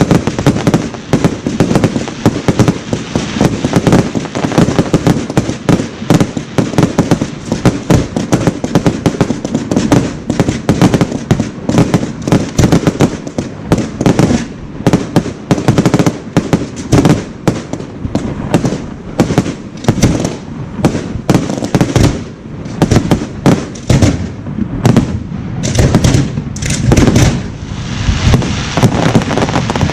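Fireworks display: a dense, continuous barrage of shell bursts and bangs, many per second and overlapping.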